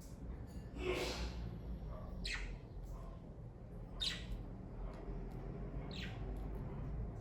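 Pet budgerigars chirping: four short, sharp calls spaced about two seconds apart, the third the loudest, over a steady low hum.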